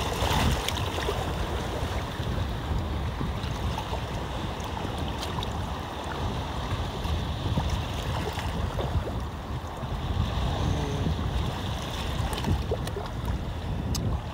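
Wind buffeting the microphone over the steady wash of sea water lapping at the shore.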